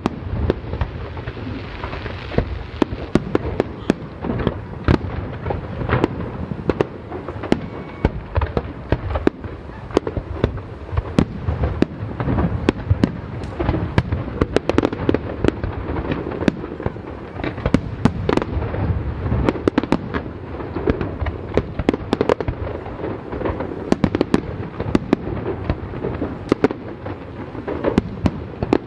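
Fireworks display: a dense, unbroken run of shell bursts and sharp cracks, several a second, over a steady low rumble.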